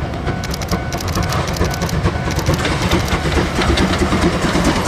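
A muddy plastic toy train being scrubbed clean: a steady, rapid scratchy rubbing.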